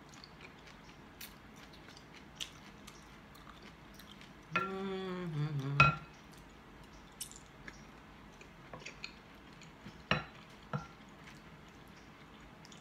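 Quiet eating sounds: chewing and small clicks, then a wooden spoon knocking and scraping in a glass soup bowl, with a couple of sharper knocks a little past the middle. A short hummed voice sounds about four and a half seconds in, falling in pitch.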